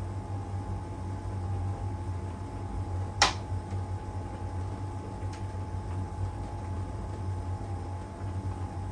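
LG heat pump tumble dryer running mid-cycle, its drum turning with a steady low hum and a steady whine. A single sharp knock about three seconds in is the loudest sound.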